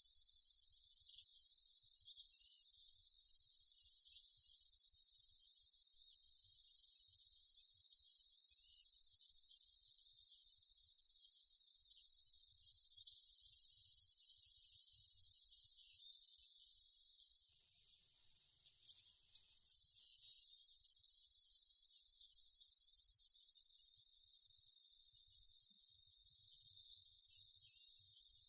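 Cicada's shrill, steady buzz. It cuts off suddenly about two-thirds of the way through, returns after a couple of seconds as a few short pulses, then settles back into the continuous buzz.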